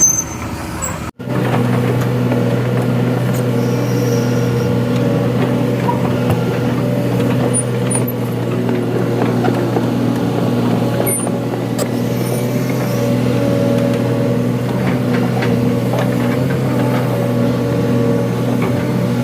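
Excavator's diesel engine running steadily at constant speed, with a slight even pulsing. The sound cuts out briefly about a second in and resumes.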